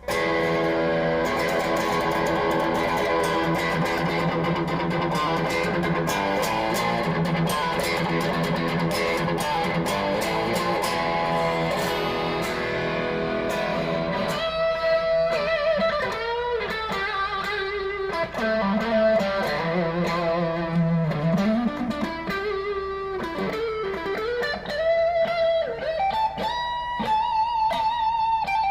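PRS SE Custom 24 Roasted Maple electric guitar, with a roasted maple neck and fingerboard, played through an amp. It rings out sustained chords, then about halfway through moves to a single-note lead melody with string bends and vibrato.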